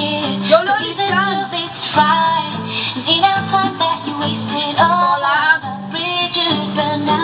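A high voice singing along to a pop backing track with guitar.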